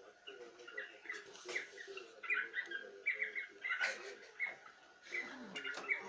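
Cockatiels chirping: a run of short, quick chirps, with a sharper, louder call about four seconds in.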